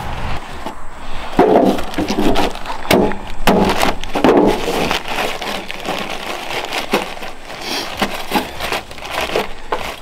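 Hand T-post driver pounding a steel fence post into the ground: about five heavy blows in three seconds. Then gloved hands rustle and crinkle a plastic bag of fence wire ties.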